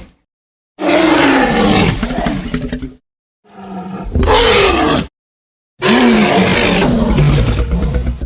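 Three fan-made Godzilla roar sound effects for the 2004 Final Wars Godzilla, each about two seconds long and sliding down in pitch, with short silences between them. The second one swells in before it peaks.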